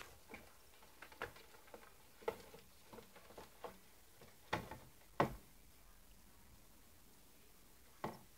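Irregular light clicks and taps, about a dozen in the first five seconds, with one more near the end.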